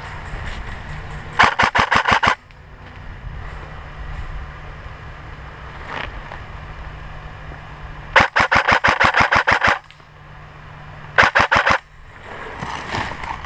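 Airsoft electric gun (AEG) firing three full-auto bursts of rapid clicking shots, about eight a second: a short burst about a second in, a longer one of about a second and a half near eight seconds in, and another short one around eleven seconds.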